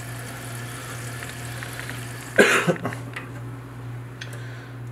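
Water running steadily into a toilet tank, then a single loud cough about halfway through, after which the water sound mostly drops away, leaving a low steady hum and a few faint clicks.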